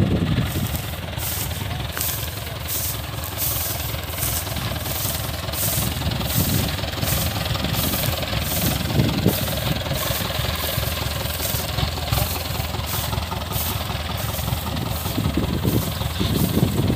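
Rice combine harvester running steadily under load, with a regular high ticking about twice a second over the engine noise.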